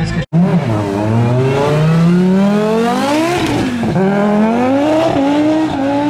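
Audi Sport quattro S1's turbocharged five-cylinder engine accelerating hard, its pitch climbing steeply, dropping at a gear change about four seconds in, then climbing again. A brief break in the sound comes just after the start.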